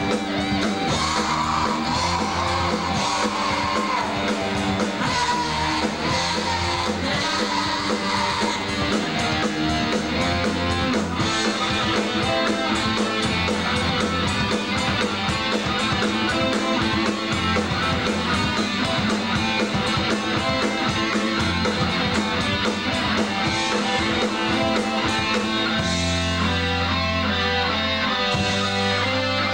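Live rock band playing: electric guitars, bass and drums with a regular drum beat.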